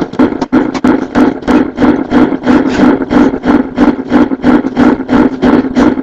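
Gabber (hardcore techno) music with a pounding distorted kick drum at about three beats a second, played loud.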